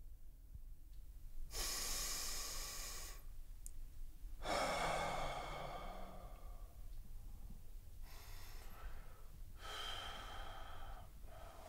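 A sleeping person breathing slowly and deeply, four breaths a few seconds apart. The second breath goes out with a low voiced sigh and the third is fainter.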